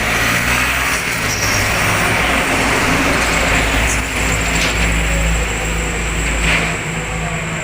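Road traffic: motorbikes and cars passing close by, a steady wash of engine and tyre noise.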